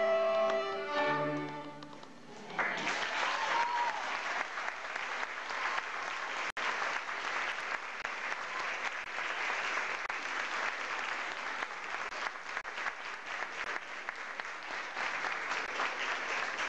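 A children's string orchestra with a solo violin plays its final held notes, which end about two seconds in. The audience then breaks into steady applause.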